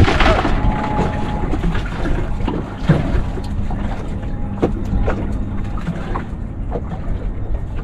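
Wind rumbling on the microphone, with scattered clicks and knocks from handling a wire-framed crab pot as crabs are pulled out of it.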